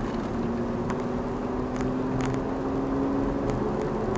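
Car driving on a highway, heard from inside the cabin: a steady engine hum over road noise, its pitch rising slowly and then dropping back about three and a half seconds in.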